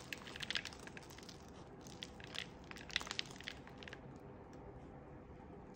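Faint crackling and crunching of an anthurium's root ball of coco coir, coco chips and perlite being handled and turned in the hands, scattered small clicks that die down after about four seconds.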